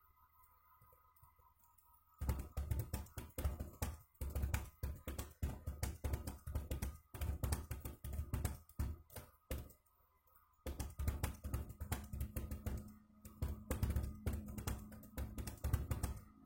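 Fast touch-typing on a computer keyboard: a dense run of keystroke clicks starting about two seconds in, with a short pause a little past the middle before the typing resumes. Faint background music runs underneath.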